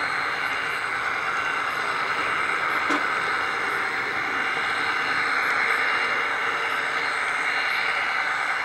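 HO-scale model train running along its track, heard close up from a camera riding on the train: a steady running noise of wheels and motor, with a faint click about three seconds in.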